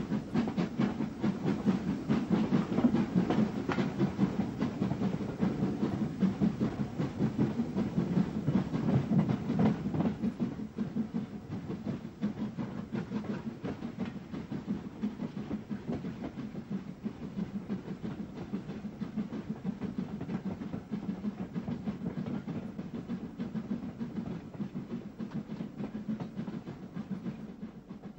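GNR VS class 4-4-0 steam locomotive pulling away hard with a train, its exhaust beating in a rapid steady rhythm over train running noise. The sound drops in level after about ten seconds and fades further near the end as the train draws away.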